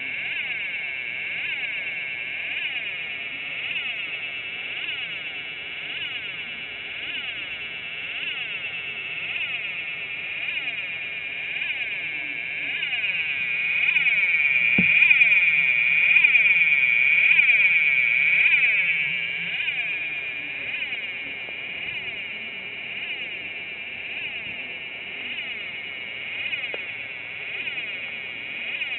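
Several DIY electronic solder-kit circuits making noise at once: a dense, high-pitched electronic whine of overlapping tones with repeated pitch sweeps, swelling louder for a few seconds in the middle. A single click sounds about halfway through.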